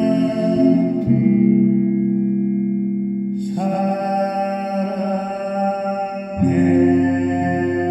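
Instrumental music: sustained chords that change to new ones three times.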